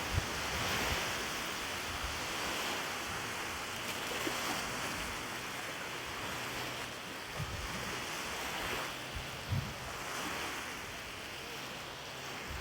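Wind blowing over a lake with small waves washing in, and a few low gusts buffeting the microphone.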